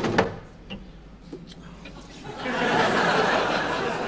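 A studio audience laughing. The laughter starts a little over two seconds in and holds to the end. It is preceded by two sharp knocks as objects are handled at the start.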